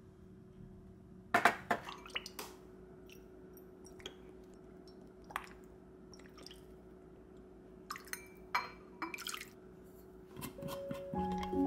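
Kitchen prep sounds: a metal measuring spoon clinking and tapping against a glass mixing bowl, with sauce dripping as soy sauce and mirin are measured out. A faint steady hum lies underneath. Light vibraphone-like music comes in near the end.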